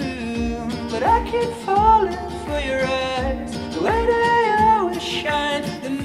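Upbeat pop song with a sung vocal line and a steady bass-drum beat about twice a second, played through iLoud Micro Monitor compact powered speakers and picked up by a microphone in the room.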